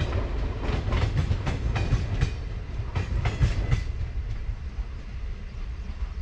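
Steel wheels of passing passenger coaches clacking over rail joints in quick, irregular clicks over a low rumble. The clicks stop about four seconds in, leaving a fading rumble.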